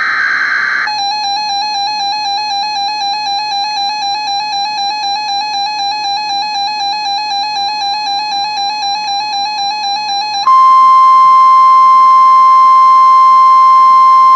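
Emergency Alert System tones for a NOAA Weather Radio severe thunderstorm warning. A brief buzzy SAME data burst is followed by a warbling electronic alert tone. About ten seconds in, a louder, steady single-pitch warning alarm tone takes over.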